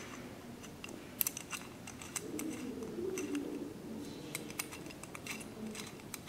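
Light, scattered metallic clicks of a T-handle hex key turning small screws into a metal gun body, the screws run down only until they seat, not tightened. A faint low murmur sits behind it in the middle.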